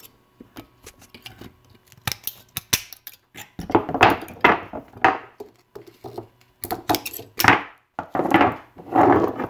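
Tin snips cutting the nickel connecting strip between A123 26650 lithium iron phosphate cells: a string of short, sharp snips, then louder scraping and knocking as the freed cells are handled on a wooden board.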